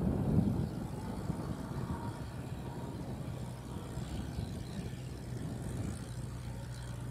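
Landini 8860 tractor's Perkins 4.1-litre four-cylinder diesel engine running steadily under load while its rear rotary tiller works dry soil, a little louder at the very start and then even.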